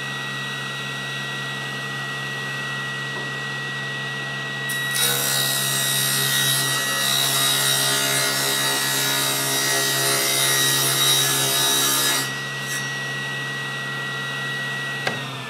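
SawStop cabinet table saw running at full speed with a steady whine, then cutting through a board along the fence for about seven seconds, which is louder and hissier, before it goes back to running free. Near the end a click as the saw is switched off, and the whine starts falling as the blade spins down.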